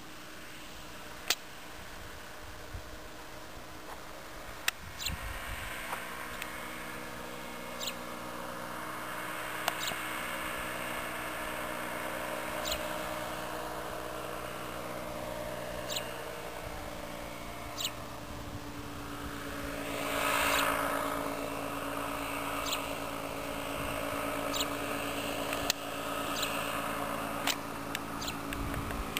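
Motorized hang glider's engine and propeller droning steadily overhead. It grows louder, is loudest about twenty seconds in, then eases a little. Scattered sharp clicks stand out above the drone.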